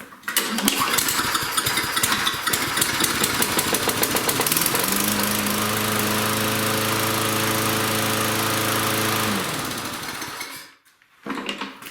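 A Toro Personal Pace mower's 6.5 hp Tecumseh engine, air filter off, starts on a shot of priming fuel. It runs for about ten seconds, settling into a steady note about halfway through. It then dies away, running only on the prime because the carburetor is not yet feeding it.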